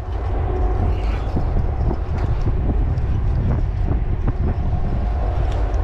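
Strong wind buffeting the microphone as a steady low rumble, with scattered small clicks and rustles over it.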